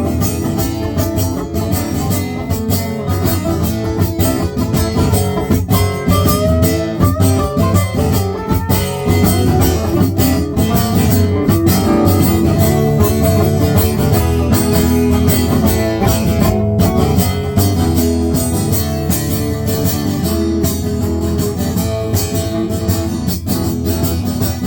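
Live acoustic band playing an instrumental break of a bluesy rock song, led by strummed acoustic guitar with a steady beat.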